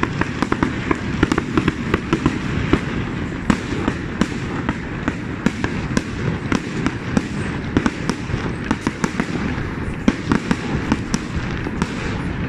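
Fireworks display: a dense, continuous run of sharp bangs and crackles over a steady low rumble of bursting shells.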